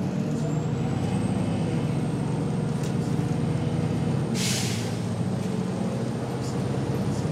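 1996–97 MCI/Novabus Classic transit bus's diesel engine pulling away from a stop, heard from inside the bus, with a thin turbocharger whine that climbs in pitch at first and then holds steady. About halfway through comes a short hiss of air, about half a second long, from the bus's air brake system.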